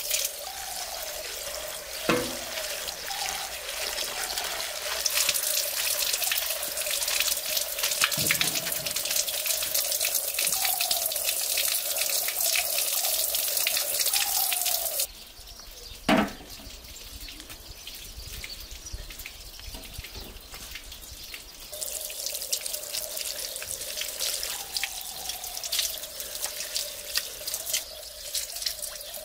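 Water running from an outdoor tap and splashing as barberries are rinsed by hand in a glass bowl, then as pieces of lamb are washed under it. The water quietens about halfway, a single knock follows a second later, and the running water grows louder again a few seconds after that.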